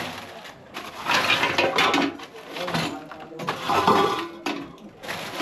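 Clattering and clinking of household objects being moved about in uneven bursts.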